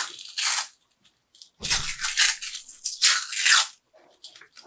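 Cloth wiring-harness tape being pulled off its roll and wound around bundled wires, in about three short, noisy pulls.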